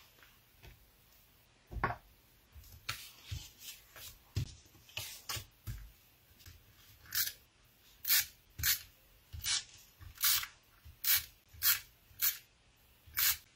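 Handheld adhesive tape runner drawn over cardstock in a run of short strokes, about two a second through the second half, with quieter handling of paper and card before it.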